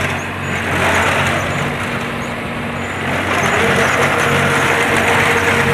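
Tractor engine running steadily while a tractor-mounted reaper binder cuts through standing crop with a dense clatter of its cutter bar and mechanism. A steady whine joins in about three and a half seconds in.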